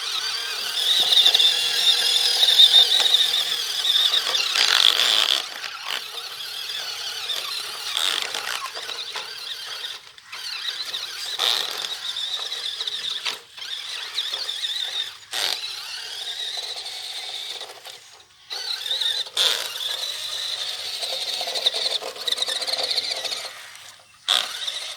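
Toy RC rock crawler's small electric motor and gearbox whining high as it is driven, the whine cutting out and starting again several times with the throttle, with a few sharp knocks in between.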